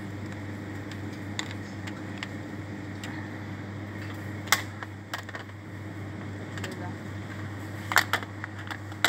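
Steady low hum of supermarket refrigeration, broken by a few sharp clicks and rattles from a plastic shopping trolley being pushed. The loudest clicks come about four and a half seconds in and twice in quick succession about eight seconds in.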